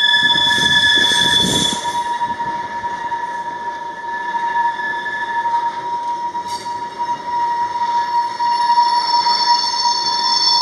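Freight train wagons rolling slowly past, their steel wheels squealing with a steady high-pitched whine of several tones held at once over a low rumble, the rumble heavier for the first couple of seconds.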